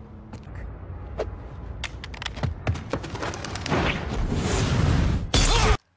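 Action-film gunfire and impact effects: a rapid, uneven volley of sharp cracks and thuds over rumbling noise, growing louder and ending in a loud blast that cuts off suddenly.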